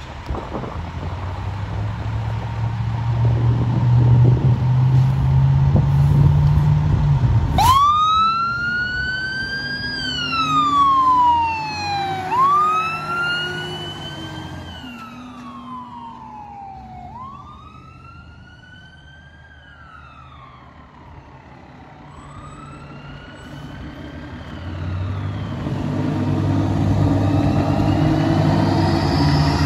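A fire engine's heavy diesel engine running loudly as it pulls out, then its siren starts about eight seconds in, wailing up and down in slow cycles, each rise quick and each fall slower, and fades as the engine drives away. Near the end a fire department ladder truck, running without its siren, approaches with its engine growing steadily louder.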